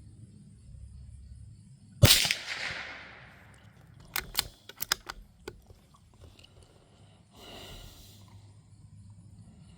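A single shot from a Savage Mark II bolt-action .22 LR rifle about two seconds in, ringing away over about a second. A couple of seconds later comes a quick run of sharp metallic clicks as the bolt is worked to eject the case and chamber the next round. Near the end there is a brief soft rustle.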